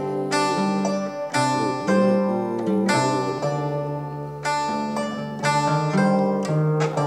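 Sundanese kacapi (plucked zither) playing an instrumental passage: ringing plucked melody notes over a moving line of low bass notes, with a strong pluck about every second.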